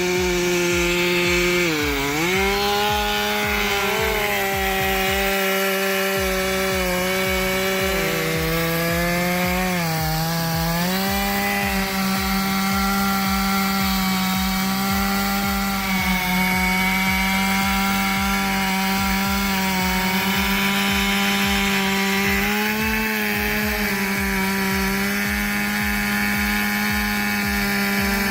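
Stihl MS461 two-stroke chainsaw running at high revs while cutting into a tree trunk, its pitch dipping twice as the engine is loaded in the cut.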